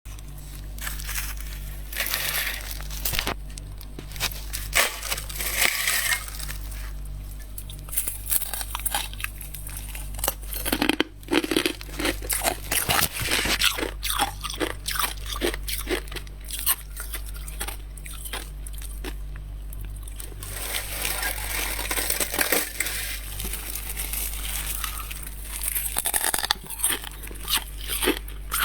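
Soft freezer frost being grabbed by hand and eaten: many crisp crunches and crackles, coming in dense runs, over a steady low hum.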